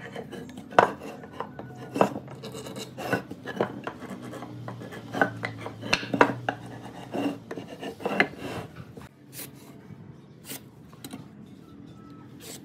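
Wooden boards being handled on a workbench: irregular knocks and clacks as the pieces are shifted and set down, mixed with the scrape of a marking gauge along the timber. The knocks thin out and grow fainter about nine seconds in.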